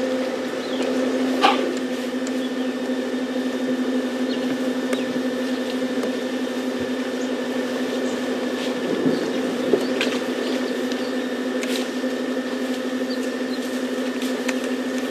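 A steady mechanical hum holding one low pitch, with a few faint clicks and ticks scattered through it.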